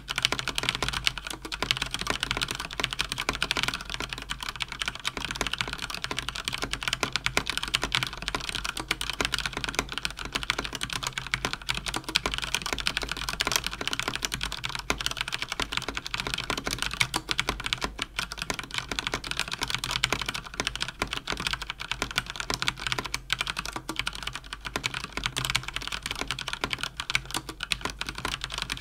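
Fast typing on a mechanical keyboard with Cherry MX Speed switches (Cougar Attack X3 RGB): a continuous, rapid clatter of key presses.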